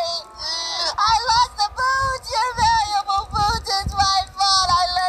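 A very high-pitched voice singing a wavering melody over music, in short bending phrases with brief gaps between them.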